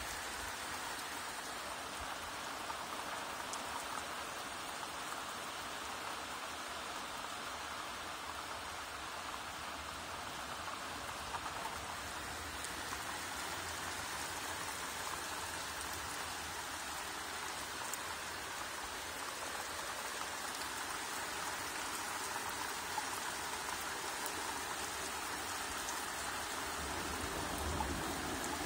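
Steady rain falling: an even hiss, with now and then a single louder drop ticking.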